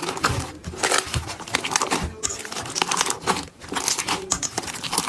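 Slime being squeezed and worked by hand, giving a dense, irregular run of crackling clicks and pops.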